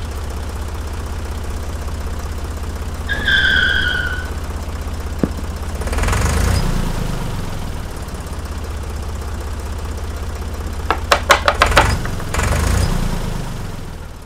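A vehicle engine hums steadily. About three seconds in there is a short high tone, and near eleven seconds a quick run of sharp clicks.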